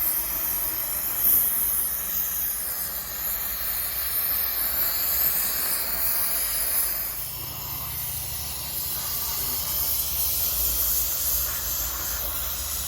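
Gas welding torch flame hissing steadily.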